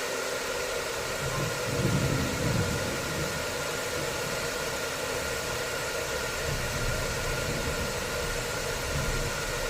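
Hair dryer running steadily: a constant rushing hiss with a thin steady whine in it, swelling briefly in the low end about two seconds in.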